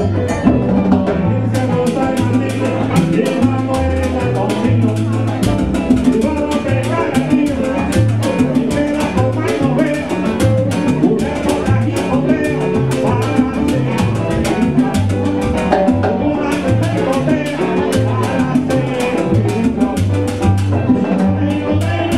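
A live Cuban dance band playing an up-tempo number: congas and timbales strike rapidly over a repeating bass line, with keyboard and other instruments filling in.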